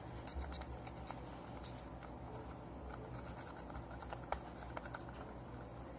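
Faint scattered clicks and taps from hands kneading a ball of soft cold-porcelain (biscuit) modelling clay, over a low steady hum.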